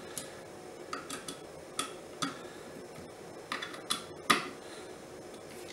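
Small metallic clicks and taps of a precision screwdriver turning the screws that hold the metal bayonet mount on a Samyang 14 mm lens, in irregular clusters, the loudest about four seconds in.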